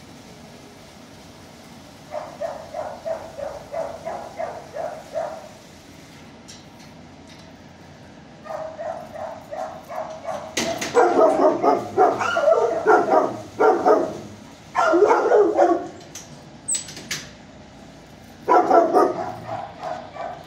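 Dog barking in bouts of quick, evenly spaced barks. The loudest bout comes in the middle, and a short one comes near the end.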